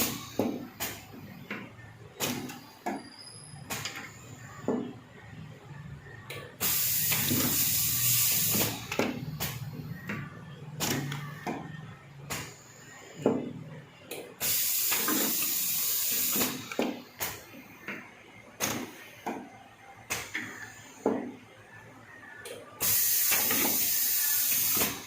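Cup filling and sealing machine cycling: a loud burst of air hiss about two seconds long roughly every eight seconds, three times, with sharp mechanical clicks and knocks between the bursts.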